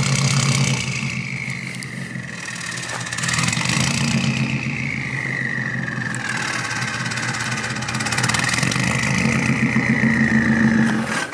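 Straight-piped Subaru WRX STi flat-four engine running, its revs rising and falling slowly in a few long swells.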